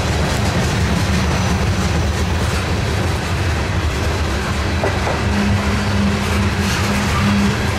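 CSX freight train rolling past: a steady, loud rumble of steel wheels on the rails. A low hum grows stronger for a couple of seconds past the middle.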